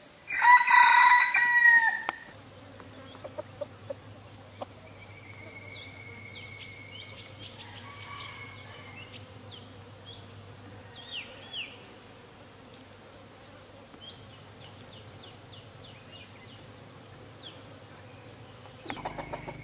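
A rooster crows once, loudly, in the first two seconds. Behind it runs a steady high insect drone with scattered short bird chirps.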